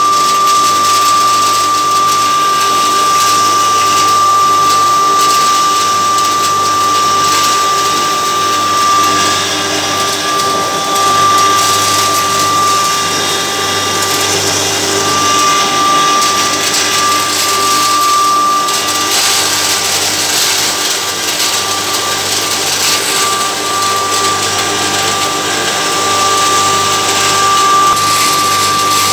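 Single-phase electric pulverizer running steadily while grinding cotton seed into cattle-feed meal. It makes a loud, constant high tone over a dense grinding hiss.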